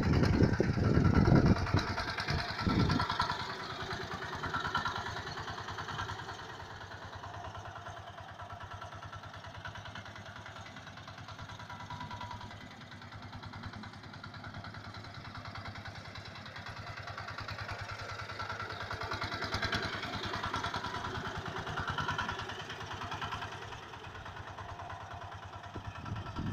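A motor running steadily, with a louder low rumble in the first few seconds.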